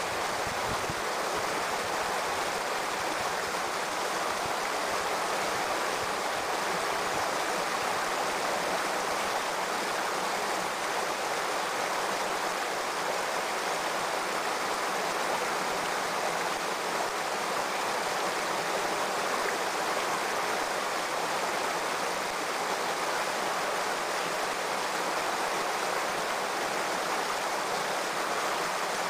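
Shallow stream running over rocks, a steady rushing of water.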